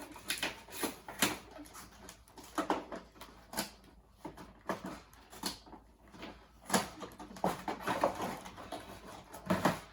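Packaging being handled as a Nerf Rival Hera blaster is unboxed: irregular sharp crackles and rustles of cardboard and plastic.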